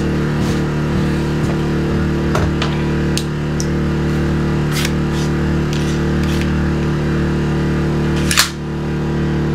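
Generator engine running with a steady hum, a few light clicks, and one sharp snap about eight seconds in as an electric nail gun is fired into plywood.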